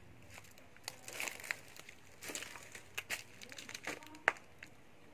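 Plastic bags and loose electronic scrap crinkling and crunching in a string of irregular rustles and clicks, the sharpest click near the end.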